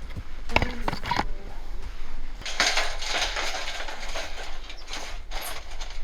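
Firewood being split and handled: two sharp knocks of wood, then a stretch of scraping and rustling, and another knock near the end.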